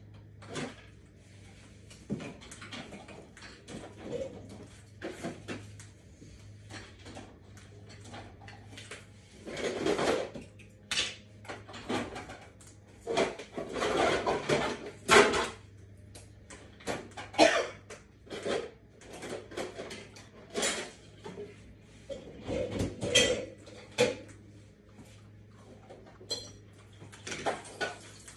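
Irregular clinks and clatters of hard objects being handled, in busier runs now and then, over a steady low hum.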